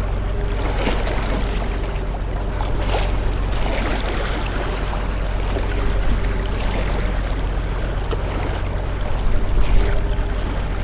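Motorboat engine running steadily with a low drone, under the rushing wash of water and repeated splashes as the boat moves across the sea. The water noise swells louder near the end.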